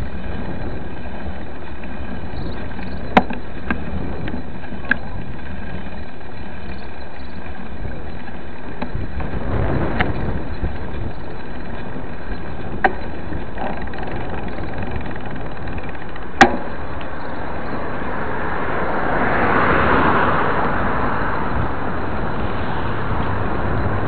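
Street traffic noise with a broad swell and fade about four-fifths of the way through as a vehicle passes. Several sharp single clicks are spaced through it.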